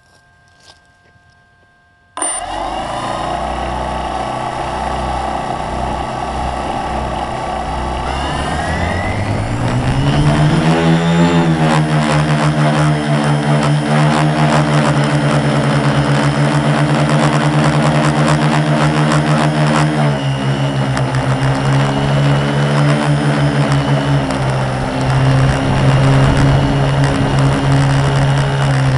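Quadcopter's four MultiStar 2212 920kv brushless motors with 10x4.5 props, heard from the onboard camera: they spin up suddenly about two seconds in and run at idle, then rise in pitch for takeoff and settle into a steady hover hum that shifts pitch a little as the throttle changes.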